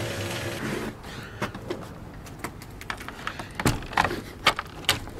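Wooden door being handled and opened: a scattered run of sharp knocks and clicks from the latch and door, with footsteps, the loudest knocks in the last two seconds.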